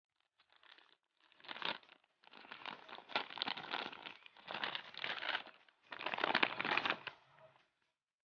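Packaging crinkling and rustling in several irregular bursts as it is handled.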